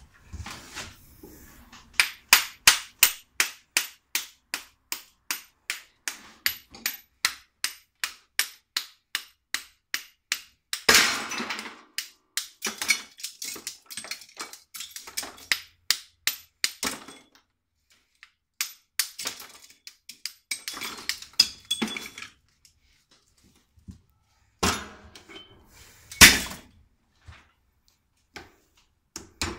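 Hand-hammer blows striking small scrap parts at a bench vise, about three a second in a fast, even run, breaking them apart to free the copper. The run is broken by a few clattering crashes of scrap pieces dropped into a scrap bucket, and the later blows come slower and more scattered.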